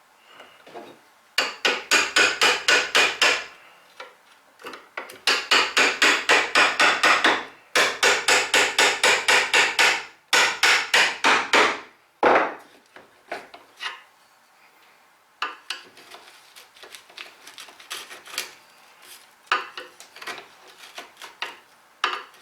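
Hammer driving a mortise chisel into wood in quick runs of light blows, about six a second, with short pauses between runs, squaring up a slanted end wall of the mortise. After about twelve seconds come fewer, softer taps and the scrape of the chisel in the mortise.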